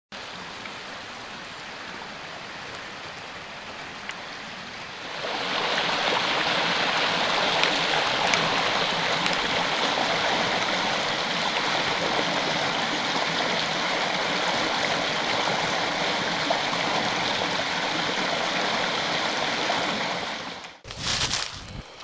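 Creek water rushing and splashing over rocks, a steady rush that grows louder about five seconds in. Near the end the water sound cuts away to a few footsteps crunching in dry leaves.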